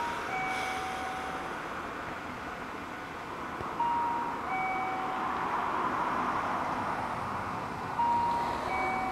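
Electronic two-note station chime, a descending ding-dong that repeats about every four seconds, over a steady background hiss.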